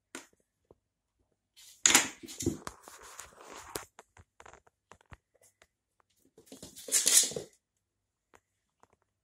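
A cat scrambling and pouncing across a laminate floor, its paws and claws scuffling and knocking in two bursts: a longer one about two seconds in and a shorter one near seven seconds.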